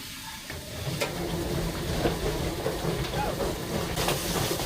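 A machine switched on about a second in, running with a steady hissing rush over a low hum, and falling away near the end.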